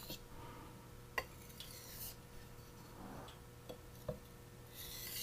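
Quiet light clicks and ticks of a knife blade set against a whetstone between sharpening strokes, one sharper click about a second in, with faint brief scrapes around two seconds in and near the end.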